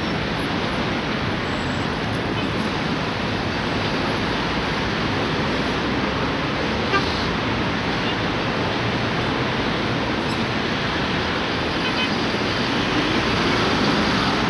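Steady noise of busy road traffic going by without a break.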